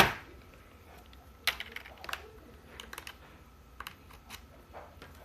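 Keys of a budget K100 mechanical keyboard being pressed: a louder knock at the start, then scattered single key clicks.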